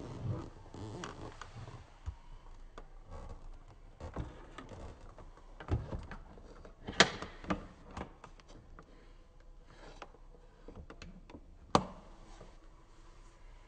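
The clear plastic filter bowl of a steam-vacuum cleaner is handled and slid back into its slot, giving scattered plastic knocks, scrapes and clicks. Two sharp, louder clicks come about seven seconds in and about five seconds later, as the side clips are snapped shut on the bowl.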